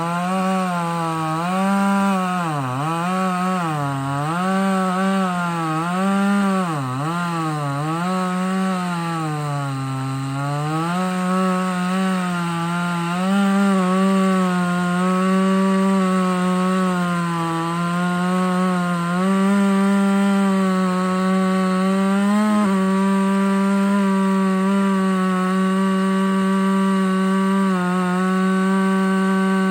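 A 58cc two-stroke chainsaw with a 20-inch bar cutting through a red oak log at full throttle. In the first ten seconds or so the engine pitch dips again and again as the saw is pressed into the wood, then it holds steady through the rest of the cut, with a couple of brief dips near the end.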